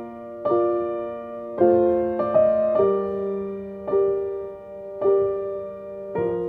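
Background music: slow piano chords, one struck about every second and left to ring out.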